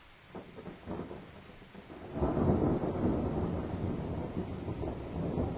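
Thunder: a few sharp crackles in the first second, then a loud rolling rumble from about two seconds in that slowly eases off.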